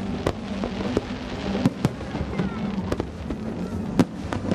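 Aerial fireworks going off: several sharp bangs at irregular intervals, the loudest about four seconds in, with a crackling hiss around a second in.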